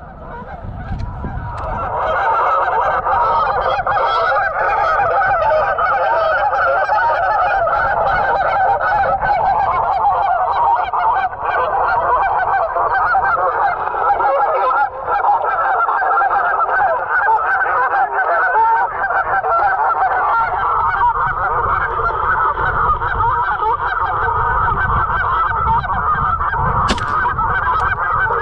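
Many geese honking at once: a dense, unbroken chorus of a large flock calling. A couple of sharp clicks near the end.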